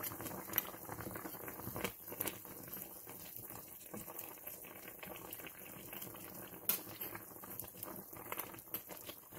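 Pot of beef, potatoes and onion in water bubbling on the stove, a steady low bubbling hiss with a few sharp clicks and pops.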